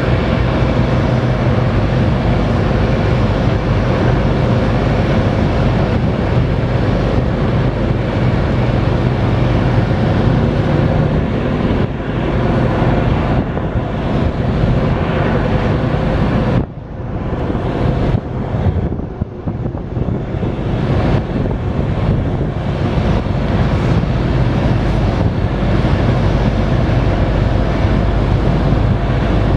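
Marine diesel engines running steadily, with wind buffeting the microphone. The sound dips briefly a little past halfway, then comes back.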